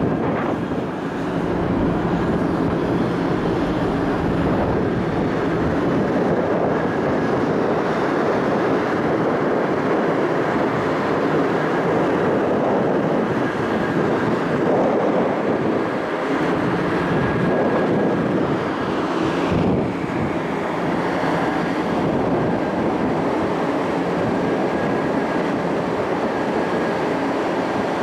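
Car ferry under way, heard from its open upper deck: a steady rush of wind and ship's machinery, with a faint constant hum.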